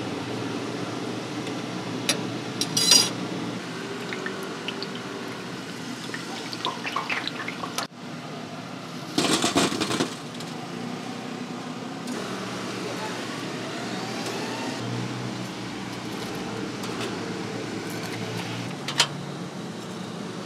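Fried taro balls tipped from a wire strainer clatter onto a steel tray about nine seconds in, the loudest sound. Metal tongs click against the strainer near the start, over a steady kitchen hum.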